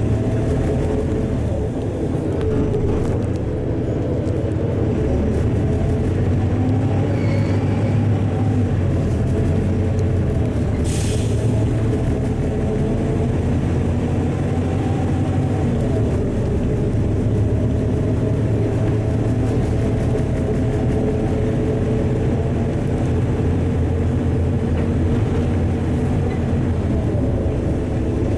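Interior of a LiAZ-4292.60 low-floor city bus on the move: the diesel engine and drivetrain drone steadily over tyre and road noise. A short hiss of air cuts in about eleven seconds in.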